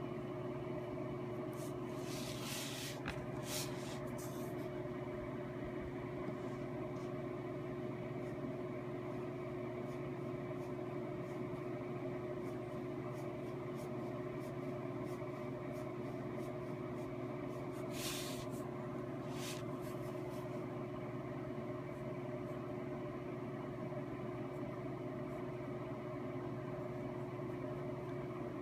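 A steady mechanical hum with one constant tone running through it, level and unchanging. Short soft rustling noises come about two seconds in and again about eighteen seconds in.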